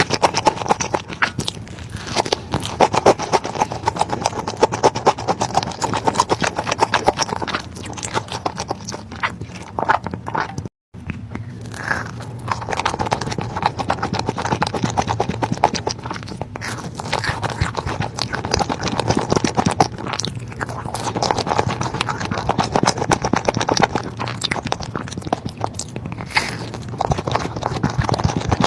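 Close-miked eating sounds: food being bitten and chewed in a dense run of quick crackly clicks, broken by a brief drop to silence about eleven seconds in.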